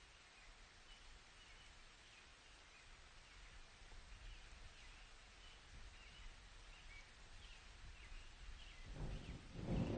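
Faint outdoor forest ambience: a soft even hiss with small, distant bird chirps repeating throughout. In the last second a low rumble of thunder begins to build.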